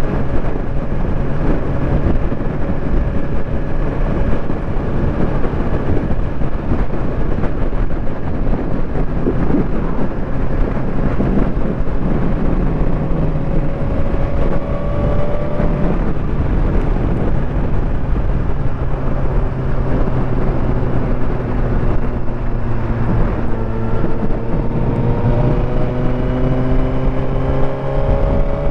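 Suzuki GSX-R1000's inline-four engine running steadily while the motorcycle cruises at road speed, over a constant rushing noise. Over the last few seconds the engine pitch rises gradually as the bike accelerates.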